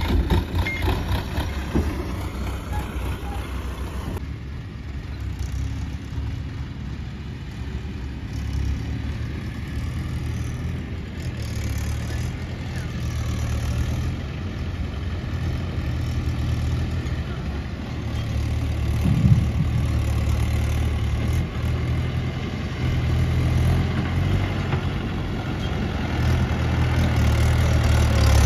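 Diesel tractor engines running steadily: a Sonalika 750 tipping its trailer for the first few seconds, then a Mahindra 575 pulling a loaded soil trailer, its engine growing louder as it comes closer.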